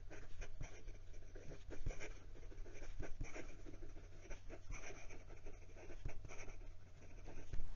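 Fountain pen with a steel Bock nib scratching across lined notebook paper in quick, irregular strokes of fast handwriting, the nib keeping up with the speed without trouble.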